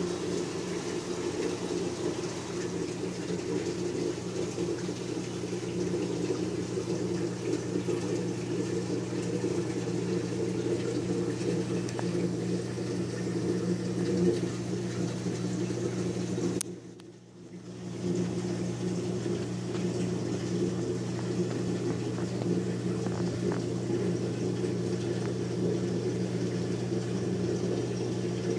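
Steady low hum of reef aquarium pumps with a faint hiss of circulating water. The sound dips briefly about two-thirds of the way through.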